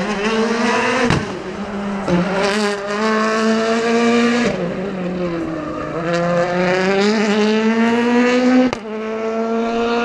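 Rally car engine revving hard out of sight, its pitch climbing in several runs that each break off sharply as it changes gear, and falling away once in the middle. A sharp crack is heard near the end.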